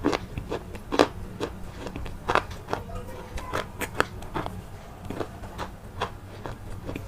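Crisp, irregular crunches and snaps of something brittle being crushed, about one or two a second with some louder than others, over a low steady hum.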